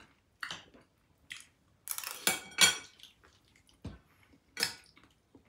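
Metal cutlery clinking against crockery during a meal: a handful of short, separate clinks, with the loudest cluster in the middle.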